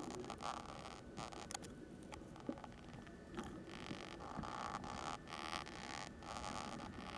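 Soft oil pastel stroking across a black-painted MDF chalk board, sped up about 25 times so the short scratching strokes run together into a fast, machine-gun-like rattle.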